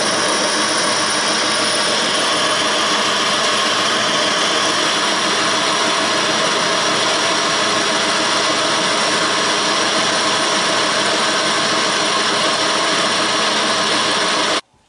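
Early-1940s LeBlond 19-inch engine lathe running steadily at speed while a boring bar cuts the bore of a bronze bushing. The sound cuts off suddenly near the end.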